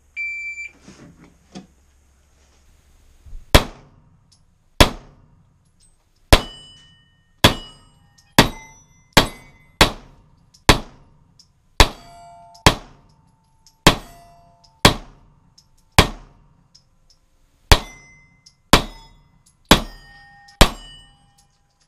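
A shot timer beeps once, then a pistol fires about seventeen shots one-handed at steel targets, spaced roughly a second apart. Many shots are followed by the ringing of a steel plate being hit.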